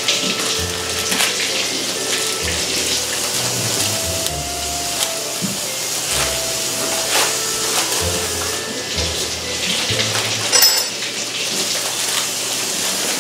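Kitchen tap running steadily into a sink, with a short clatter about ten and a half seconds in.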